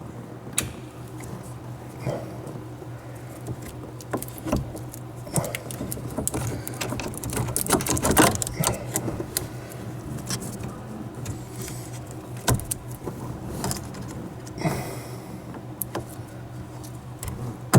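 Small clicks, rattles and rustling as hands work on a sunroof wiring harness and its plastic connectors, over a steady low hum.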